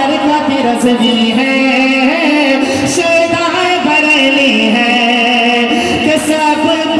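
A man singing a naat, an Urdu devotional poem in praise of the Prophet, amplified through a microphone and loudspeakers, in a melodic recitation with long held notes.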